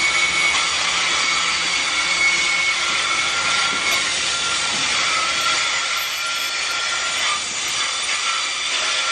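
Freight train's covered hopper cars rolling past, a steady rush of steel wheels on rail with thin steady whining tones over it.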